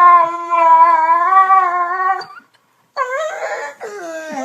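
A dog howling in long, slightly wavering calls: one running for about two seconds, then after a short pause a second one.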